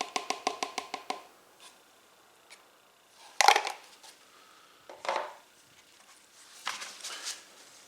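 Oil glugging as it is poured, a quick even run of pulses that stops about a second in. Then two knocks about a second and a half apart, the first the loudest, and a short rub near the end.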